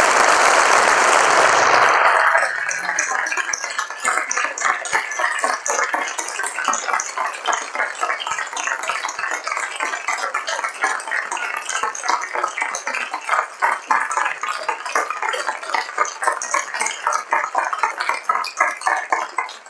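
Audience applauding: a dense burst of clapping for about the first two seconds, then thinner, separate handclaps going on until near the end.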